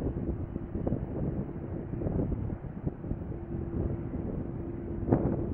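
Wind buffeting the microphone over the low rumble of a jet airliner's engines, with a faint steady hum.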